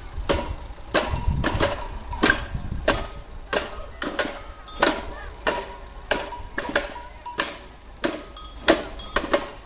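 Street drum band of large bass drums and snare drums playing a steady beat, sharp strikes coming a little under two a second.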